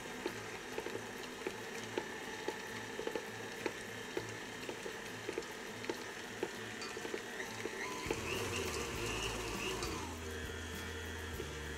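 KitchenAid Ultra Power stand mixer running, its flat beater churning and slapping thick choux paste as eggs are beaten in, with a low rhythmic thump about two or three times a second and small clicks. About eight seconds in, the speed control is moved and the sound changes to a steadier low motor hum.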